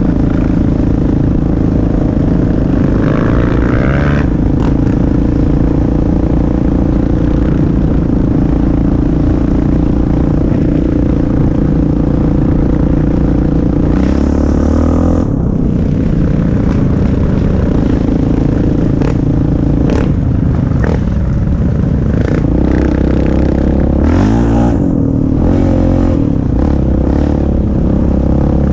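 Sport quad ATV engine running steadily under way on a trail, its pitch changing several times. Occasional sharp clicks and knocks sound over it.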